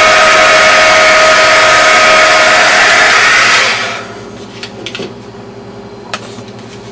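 Embossing heat gun blowing hot air, a loud steady rush with a steady whine, melting embossing powder on a raw polymer clay border. It is switched off about three and a half seconds in and dies away, followed by a few light clicks.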